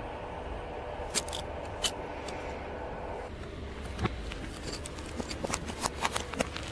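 A few sharp clicks of a disposable lighter being struck, then from about four seconds in a quick series of cracks and snaps as a car tyre rolls over a row of plastic disposable lighters and crushes them.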